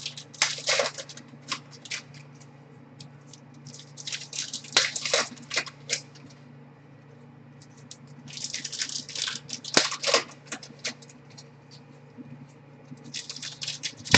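Baseball cards being handled: quick clicks and rustles of cards sliding and flicking against one another as they are thumbed through, in four short spells with pauses between. A steady low hum runs underneath.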